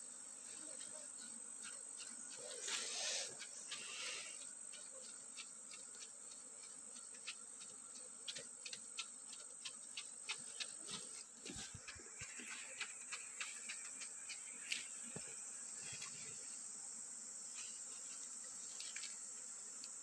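Steady, high-pitched insect trill from the surrounding forest, with leaves rustling about three seconds in and a scattered run of light clicks and taps through the middle as the beekeeper's hands work at the wooden box hive.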